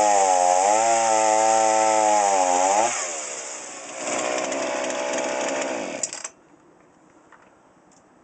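Two-stroke chainsaw running at high revs, its pitch wavering a little. The revs drop about three seconds in, then pick up again roughly. The saw stops abruptly about six seconds in.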